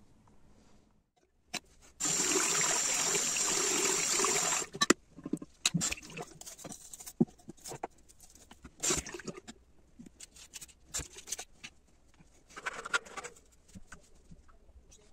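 Clicks, taps and clatter from a parrot cage being handled and cleaned. About two seconds in there is a steady, loud hiss for roughly two and a half seconds, and a shorter one near the end.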